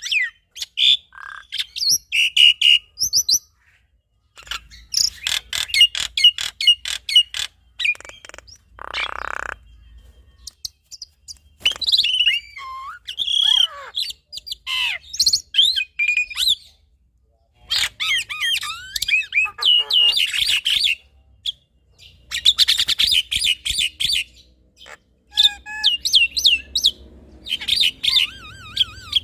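A male black-winged myna and a female Javan myna singing in a duet: bursts of varied chirps, whistles and fast rattling trills, broken by short pauses. A harsh rasping call comes about nine seconds in.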